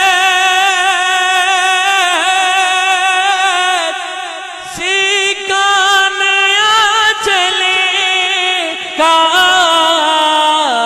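A man singing a naat into a handheld microphone, drawing out long, wavering, ornamented notes. He breaks off briefly about halfway through, then takes the line up again.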